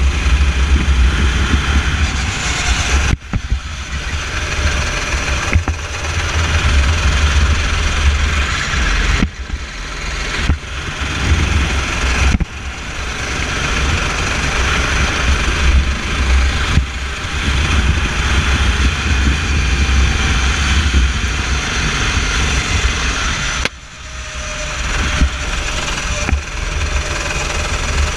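Racing kart engine running hard on the track. Several times it cuts back suddenly as the throttle is lifted for a corner, then climbs again as the kart accelerates out, all over a heavy low rumble.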